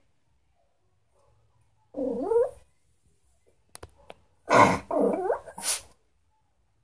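Small long-haired dog vocalizing: a short rising whine-like call about two seconds in, then, after a couple of faint clicks, a louder run of two or three gliding yowls near the end.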